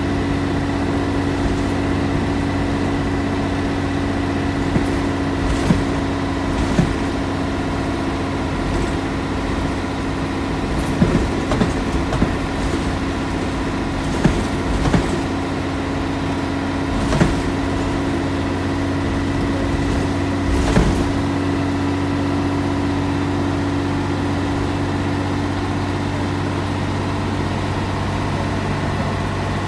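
Scania L113CRL bus's rear-mounted 11-litre six-cylinder diesel idling steadily, heard from inside the saloon, with a few sharp knocks and rattles in the middle stretch.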